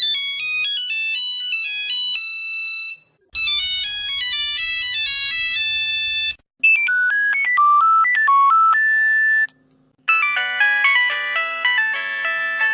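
Nokia mobile phone ringtones played one after another: four short electronic melodies, each about three seconds long and each in a different tone, separated by brief pauses. The last one is fuller, with several notes at once.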